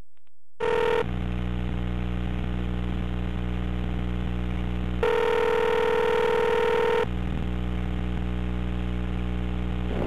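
Ringback tone heard over a telephone line while the call rings through to a pay phone: a short burst under a second in, then one two-second tone about five seconds in, over a steady low hum on the line.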